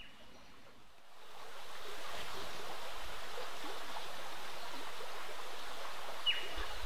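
Steady rush of running water from a stream, fading in about a second in. A single short, high chirp that falls in pitch sounds near the end.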